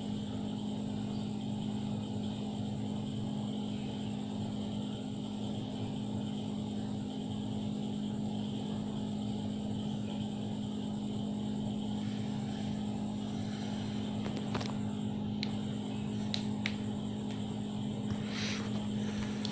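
A steady, unchanging hum, with a few faint clicks and short rustles in the last five seconds.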